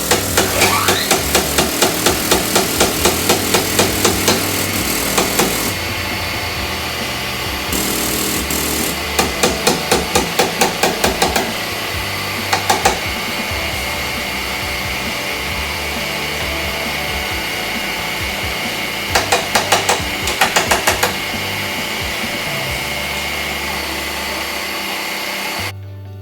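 Hammer blows on car body metal in quick runs of about four strikes a second, repeated several times with pauses, over a steady noise.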